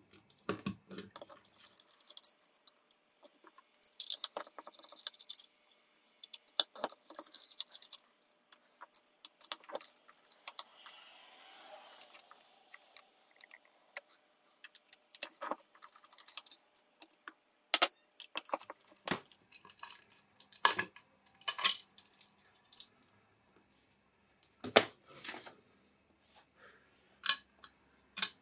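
Small screwdriver clicking and scraping in the tiny screws that hold a hard drive's circuit board, with the little metal screws clinking as they are taken out and handled. Irregular sharp clicks and taps throughout, now and then close together.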